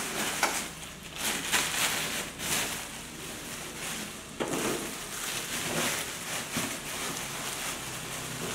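Plastic sheet crinkling and rustling as handfuls of sticky rice mixed with grated coconut are scooped out and dropped into a metal steamer basket, with a few light clicks and knocks.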